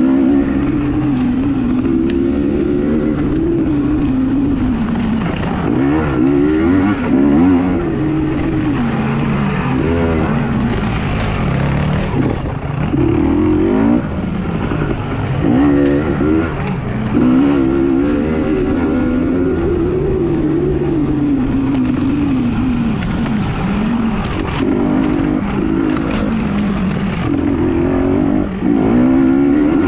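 Off-road racing motorcycle engine being ridden hard, its pitch climbing and dropping every second or two as the throttle is worked.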